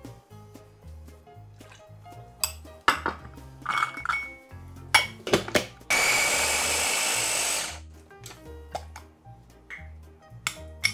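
A small electric mini chopper runs in one steady whir for just under two seconds, about six seconds in, mincing garlic cloves. Before it come a few sharp knocks and clicks of containers and utensils being handled.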